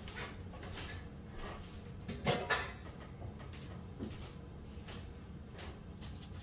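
Cookware being handled while the marinade goes into the pot: light clinks and two sharp knocks close together about two seconds in, over a steady low hum.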